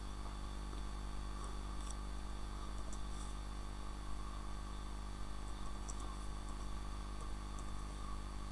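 Steady electrical hum and microphone hiss, with a few faint, short clicks of computer keyboard keys being typed.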